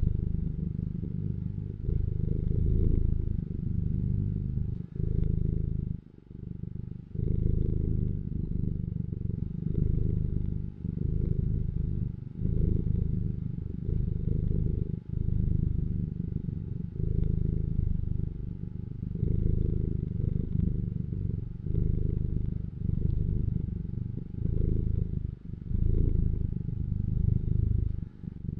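Domestic cat purring: a low rumble that breaks off briefly every one to two seconds as the cat breathes.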